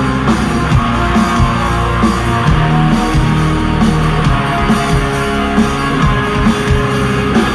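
Live rock band playing loudly through a stage PA: electric guitars over a steady drum beat.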